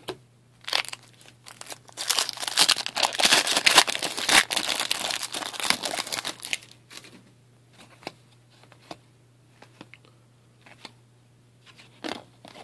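Foil wrapper of a hockey card pack being torn open and crinkled: dense crackling for about five seconds, then only a few light clicks as the cards are handled.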